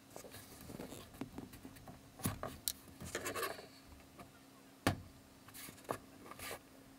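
Close handling noises of a wine cork with a steel wire through it: fingers rubbing and turning the cork, with scraping through the first three and a half seconds, a sharp click about five seconds in, and a few smaller clicks and a scrape after it.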